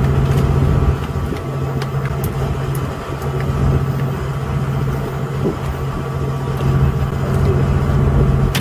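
Fishing boat's engine running steadily, a low even drone, with a few faint clicks over it.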